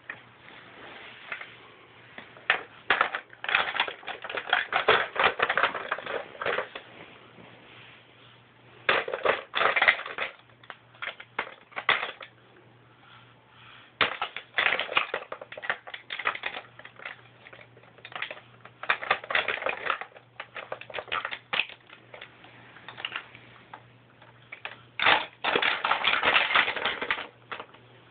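Hard plastic toys, a toy bus and its small figures, clicking and clattering in irregular bursts of rapid knocks as a toddler handles them, with quieter pauses between.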